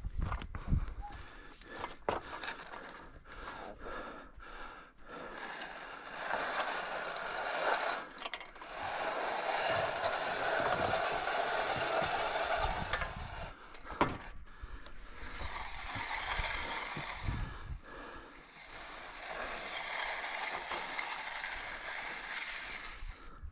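A hand tool scraping across fresh concrete in long strokes of two to four seconds, with short breaks between them. Scattered clicks and knocks come in the first few seconds.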